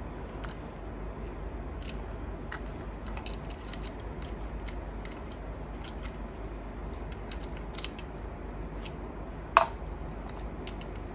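Light plastic clicks and handling noises from a strap and buckle being fitted to a Tamagotchi, with one sharp, much louder click about nine and a half seconds in.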